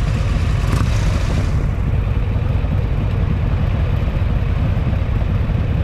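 Harley-Davidson Fat Boy's V-twin engine running steadily at idle, a continuous low, loud sound.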